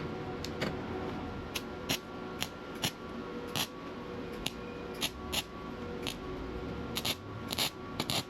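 Short MIG tack welds stitching cracks in sheet steel: a string of brief, sharp crackles at irregular intervals, a few slightly longer ones near the end. A faint steady hum runs underneath.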